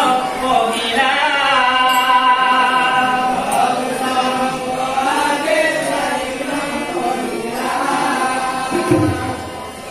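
Voices singing a chant-like devotional verse together, in long held notes that slide between pitches.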